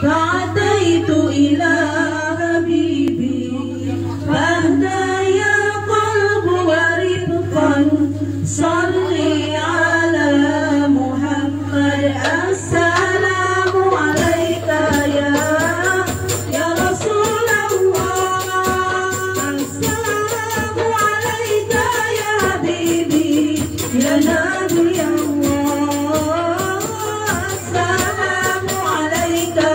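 Hadroh ensemble: female voices singing an Islamic devotional song through a PA, backed by rebana frame drums. From about halfway a fast, dense jingling percussion rhythm joins in. A steady low hum runs underneath.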